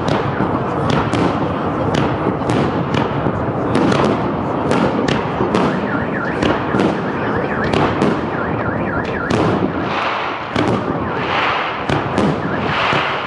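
Aerial fireworks shells bursting in a continuous barrage: a rapid run of sharp bangs, several a second, with dense crackling between them.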